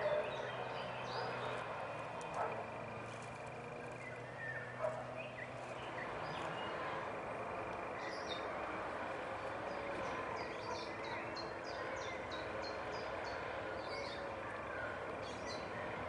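Outdoor ambience of birds chirping, with many quick high chirps in the second half, over a steady background hiss. A few brief louder sounds stand out in the first five seconds.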